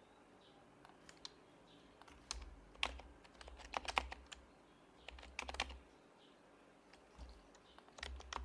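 Typing on an HHKB Professional Hybrid Type-S keyboard with its silenced Topre switches: soft keystrokes in short irregular bursts with pauses between them.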